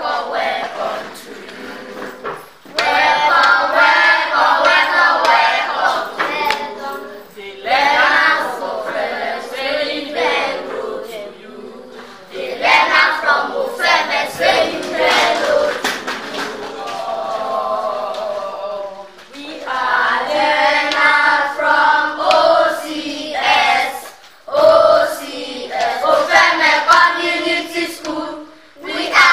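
Schoolchildren singing a song, in sung phrases broken by short pauses between lines.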